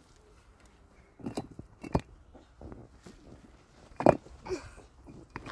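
A few scattered sharp knocks and clicks, the loudest about four seconds in, with a faint voice just after it.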